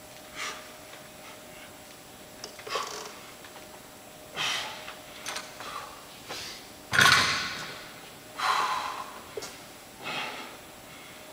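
A man breathing hard from exertion during dumbbell front squats, with a loud exhale every second or two. About seven seconds in there is a single heavy thud as the dumbbell is set down on the mat, followed by a long, fading breath.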